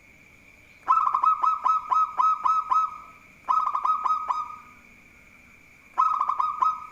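Zebra dove (perkutut) singing three bursts of rapid, evenly spaced cooing notes. A long first phrase is followed by two shorter ones, over a steady high background whine.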